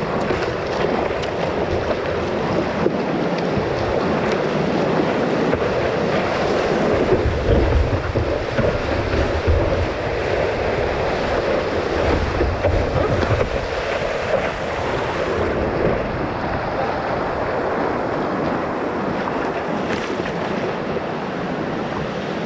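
Whitewater rushing and splashing around a surfboard riding a broken wave, with wind buffeting the microphone. The low rumble of the water is strongest in the middle and eases near the end as the ride runs out into shallow water.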